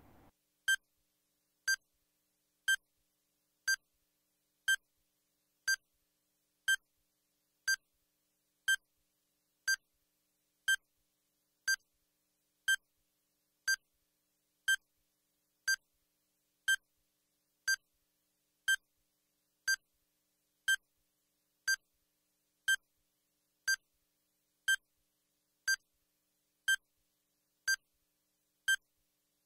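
Countdown timer sound effect: a short, high electronic beep repeating evenly once a second, ticking off the seconds of the countdown.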